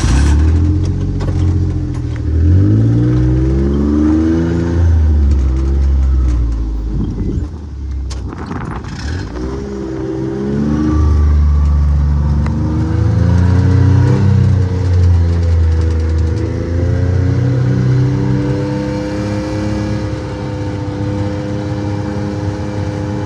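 A motor vehicle's engine pulling away and driving, its pitch rising and falling several times as it accelerates and eases off, then settling to a steady run in the last several seconds.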